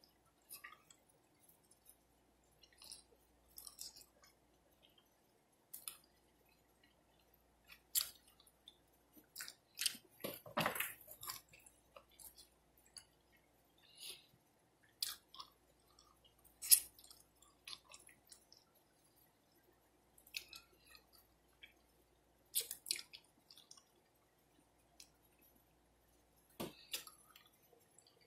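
Close-miked chewing of a fried chicken wing: irregular wet mouth clicks and smacks, quiet between them, with the loudest smacks about eight, ten, seventeen and twenty-three seconds in.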